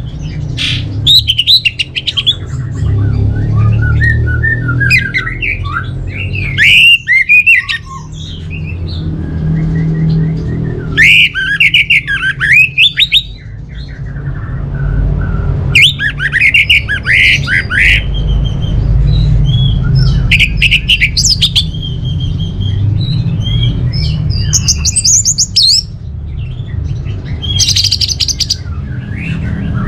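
Orange-headed thrush singing: bursts of fast, varied whistled phrases, several seconds apart, over a steady low rumble.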